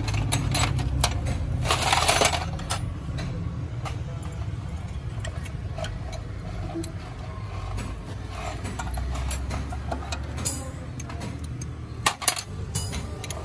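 Metal clinks and scraping as a clutch pressure plate is shifted on the flywheel and lined up with a splined alignment shaft, with a scrape about two seconds in and a few sharp clinks near the end, over a low steady hum.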